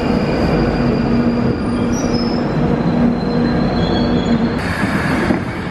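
London Underground train running along the platform: a loud, steady rumble of wheels on rail with held whining tones over it. A brief burst of hiss comes near the end.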